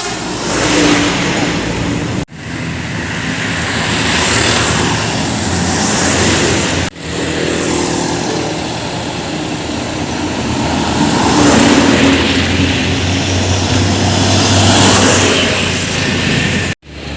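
Large trucks passing close by on a road one after another: engine rumble and tyre noise swell and fade as each goes past. The sound cuts off abruptly three times.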